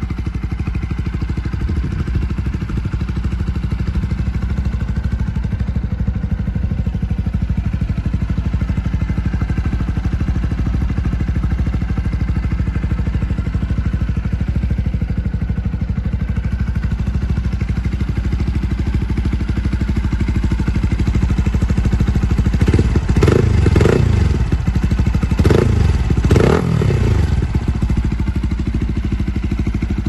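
Lexmoto LXR 125's single-cylinder four-stroke engine, remapped and breathing through a Lextek OP1 aftermarket exhaust, idling steadily. About three-quarters of the way in it is revved in a few short throttle blips, then settles back to idle.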